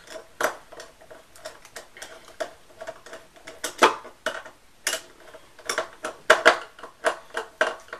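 Phillips screwdriver driving a screw into the stand mount on the back of an LCD monitor: a string of irregular sharp metal clicks and scrapes, loudest about two-thirds of the way through.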